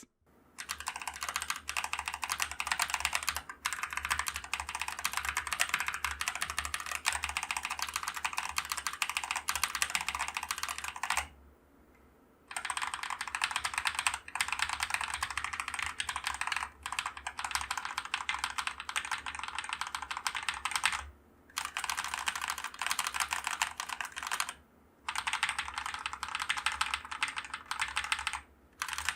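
Fast typing on a Glorious GMMK TKL mechanical keyboard fitted with Akko Matcha Green linear switches, first stock and then lubed, with a pause of about a second around eleven seconds in and a few shorter ones later.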